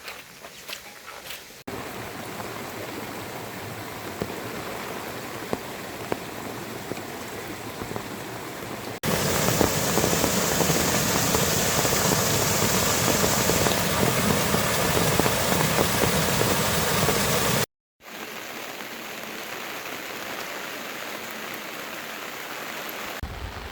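Steady rain falling, heard in spliced takes: it jumps suddenly louder about a third of the way in, then breaks off for a moment two-thirds through and comes back quieter.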